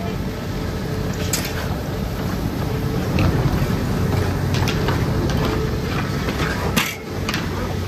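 Doppelmayr detachable six-seat chairlift running: a steady low mechanical hum with a few sharp clacks, the loudest near the end.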